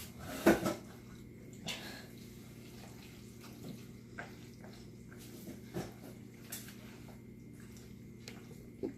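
A utensil knocking and scraping against a mixing bowl as baked beans are stirred, with one loud clank about half a second in and scattered lighter clinks after, over a steady low hum.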